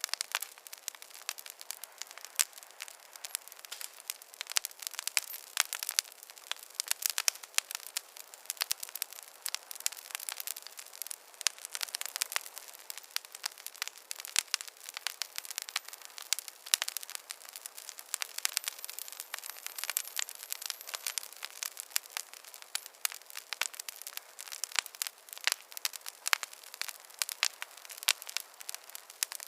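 Wood fire crackling: a dense, irregular stream of small pops and snaps, with no low rumble.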